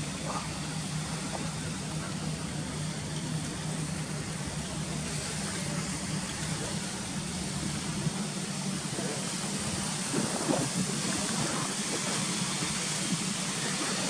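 Water rushing steadily through the sluices of a canal lock gate, growing a little louder toward the end, with a low steady hum underneath.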